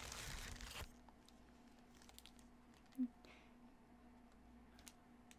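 Plastic wrapping crinkling briefly as a candle is unwrapped, stopping within the first second. After that, near silence with a few faint handling ticks.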